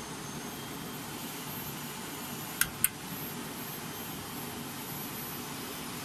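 Steady rushing of a fast-flowing river. About two and a half seconds in, two sharp clicks come in quick succession.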